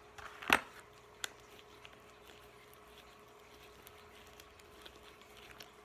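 Fingers poking and squeezing homemade fluffy slime of glue, shaving cream and contact solution: a sharp click about half a second in, another smaller one just after a second, then faint sticky crackles.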